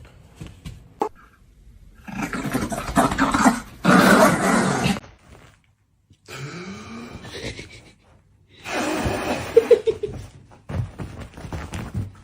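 A dog growling in a series of harsh, rasping bursts, with a short break about six seconds in.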